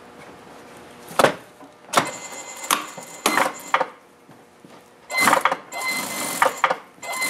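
Cloth rustling in several short bursts as white fabric is handled and positioned at the machine. About five seconds in, an industrial sewing machine runs for about two seconds with a steady motor whine.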